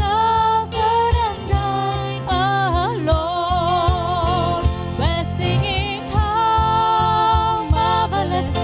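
Worship hymn music: a held melodic line with vibrato over steady keyboard and bass accompaniment.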